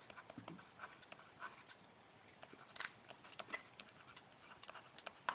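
Faint, irregular small clicks and taps over a near-silent background.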